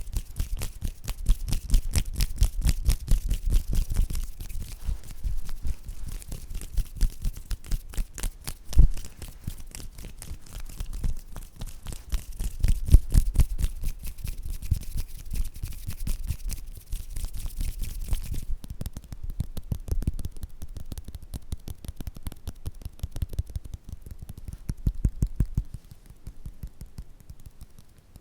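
Close-miked ASMR hand and mouth sounds: a rapid, dense run of soft clicks, taps and rustles, several a second, with low thumps from the microphone. About two-thirds of the way through, the hissy high end drops away and the sounds go softer.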